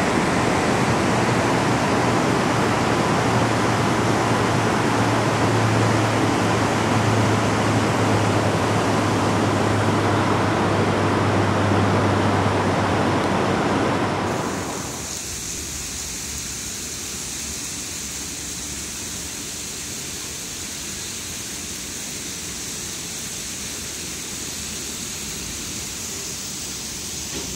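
River Clyde rapids rushing: loud, steady water noise with a low hum beneath it. About halfway through it gives way to a quieter, higher hiss of water splashing and streaming off the buckets of an iron waterwheel.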